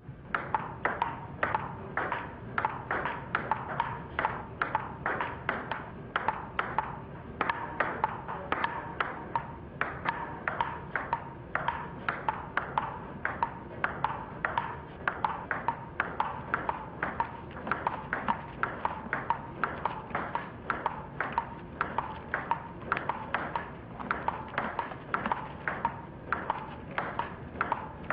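Table tennis rally: a celluloid ping-pong ball clicking off paddles and the table in a long, steady run, about two to three hits a second, with no pause.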